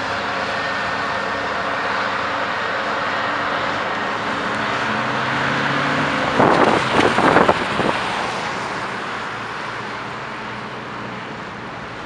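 Heavy diesel engines of a passing Volvo wheel loader and a dump truck running steadily as they drive by. About six seconds in, as the dump truck passes, there is a burst of loud knocks, and then the sound slowly fades as the trucks move away.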